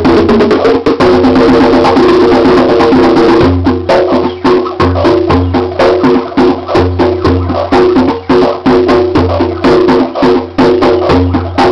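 Hand drumming on bongos and a djembe over a drum machine beat with held synth tones underneath. About three and a half seconds in, a busy high rattling layer drops out and the drum strokes come through sparser and more separate.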